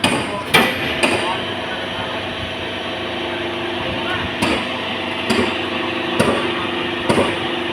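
Hydraulic car baling press running with a steady hum, its scrap and steel parts giving about seven loud clanks at uneven intervals, three close together at the start and the rest a second or so apart later on.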